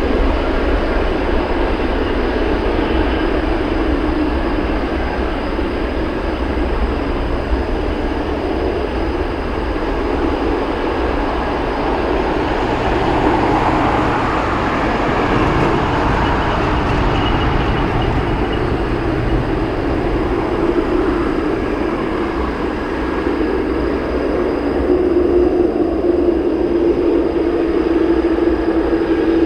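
Jet airliner engines running with a loud, steady rushing noise, growing a little stronger about halfway through, with a steady hum coming up near the end.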